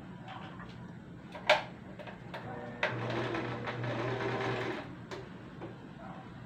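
Electric domestic sewing machine stitching: a low steady hum broken by a few sharp clicks, then a louder stretch of the machine running for about two seconds in the middle before it eases off again.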